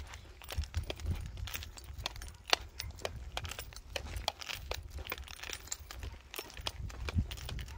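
Irregular light metallic clicks and jingles, a few a second, from walking a puppy on a leash, over a steady low rumble on the microphone.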